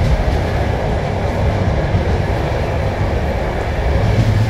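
Steady rumble of a passenger train running along the track, heard from inside a carriage.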